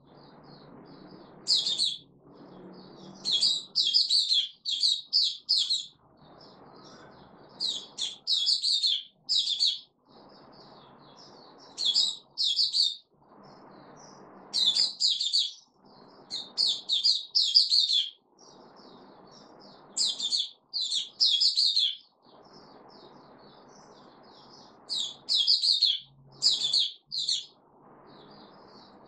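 A caged white-eye singing: short bursts of rapid, high chirping notes, each phrase about a second or two long, repeated every few seconds with brief pauses between.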